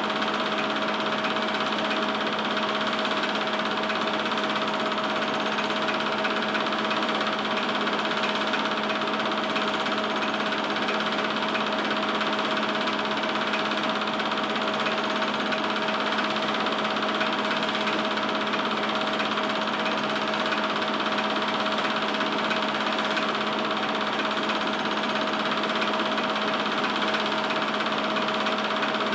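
Home-movie film projector running: a steady mechanical whir and rattle with a constant low hum, unchanging throughout.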